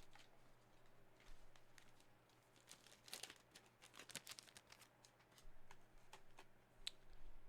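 Faint crinkling and scattered light clicks of trading-card packs and cards being handled and opened, busiest in the middle.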